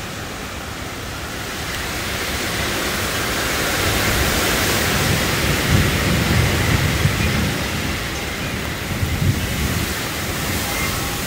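Heavy rain and strong wind gusts in a severe thunderstorm, a steady rushing noise that swells a few seconds in and eases near the end, with low rumbling gusts in the middle.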